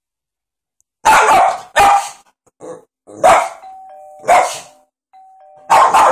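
A Boston terrier barking loudly and repeatedly, starting about a second in, in reaction to an iPad's doorbell ringtone, whose quieter two-note ding-dong chime sounds twice between the barks.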